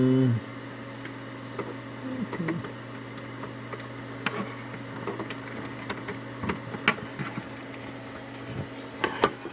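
Scattered clicks and light knocks of cables and a USB plug being handled and pushed into a port at the back of a desktop computer, with a cluster of sharper clicks near the end. A steady low hum runs underneath.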